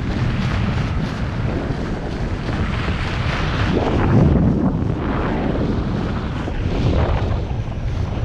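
Wind noise from the airflow of paraglider flight buffeting the camera's microphone: a steady roar that swells and eases every second or two.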